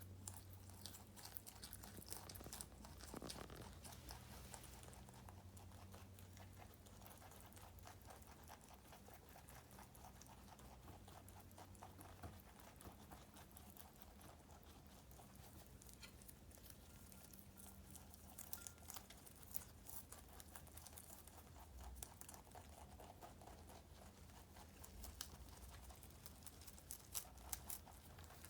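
Two rabbits chewing romaine lettuce: quiet, quick crisp crunching clicks, thickest in the first few seconds and again near the end.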